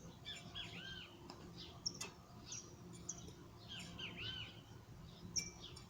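Songbirds calling: a phrase of arched chirps comes twice, with short high notes in between. A sharp click about two seconds in and another near the end.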